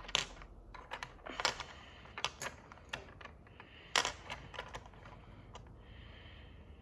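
Small hard plastic toy pieces clicking and tapping as they are handled and fitted together: irregular light clicks, the sharpest about four seconds in.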